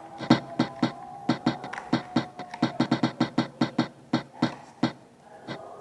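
Spin-the-wheel phone app ticking as its wheel spins: about twenty clicks, coming faster through the middle, then slowing and spacing out near the end as the wheel comes to rest.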